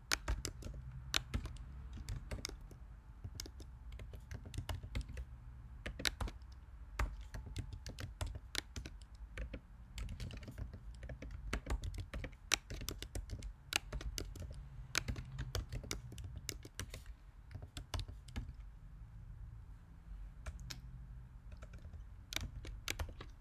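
Typing on a computer keyboard: irregular key clicks in quick runs with short pauses, over a steady low hum.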